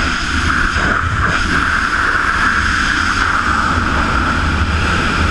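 Steady rush of freefall wind over a GoPro in a wingsuit flight, a constant loud roar of air on the microphone with a low rumble underneath.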